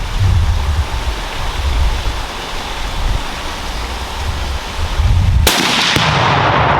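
Wind buffeting the microphone, then about five and a half seconds in a single .338 Lapua rifle shot, followed half a second later by a second, fainter report from the Tannerite-packed dishwasher exploding downrange. A long rumbling echo rolls on afterwards.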